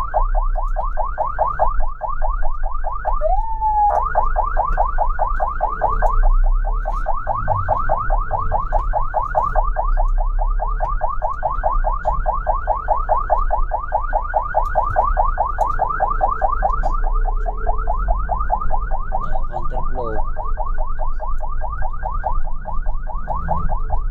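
Ambulance siren in a fast yelp, a rapid up-and-down sweep repeating several times a second over a low rumble. The yelp breaks briefly for a short held tone about three and a half seconds in, then resumes.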